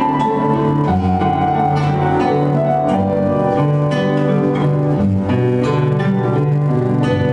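Instrumental music: a plucked guitar melody over held bass notes that change about once a second.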